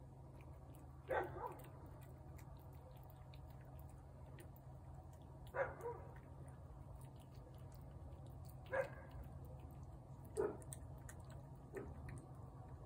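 A cat eating wet food off a plate, with faint chewing clicks, broken by five short, loud animal calls a few seconds apart.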